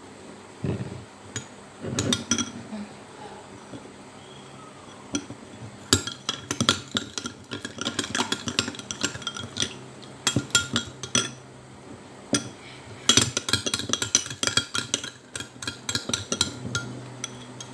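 A spoon stirring honey and lemon juice in a bowl, clinking against its side. There are a few scattered knocks at first, then quick runs of clinking from about six seconds in.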